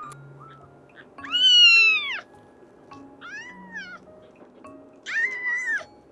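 A kitten meowing three times in high, rising-then-falling calls, the first the loudest, over faint background music.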